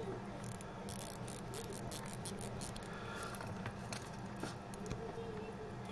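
Small sharp clicks from a Vostok Amphibia mechanical watch's crown being turned by hand: a quick run of clicks, then a few scattered ones, over a steady low hum.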